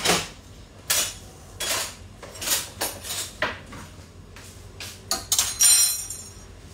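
Steel ladles and spoons clinking and clattering in a kitchen cutlery drawer as one is picked out: a string of separate metallic clinks. Near the end comes a louder, briefly ringing metal clang.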